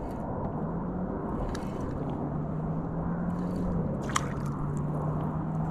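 A hooked mangrove snapper splashing at the surface of shallow water as it is reeled in on a spinning reel, with a sharp splash about four seconds in. A low steady hum that shifts in pitch a couple of times runs underneath.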